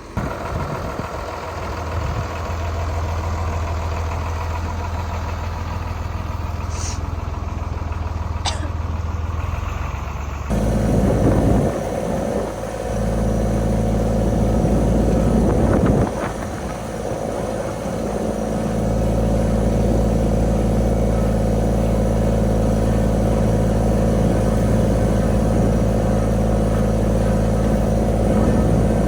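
Farm tractor engine running steadily under load while moving a pile of chicken manure compost. About ten seconds in the engine sound changes abruptly and becomes louder and fuller, then holds steady.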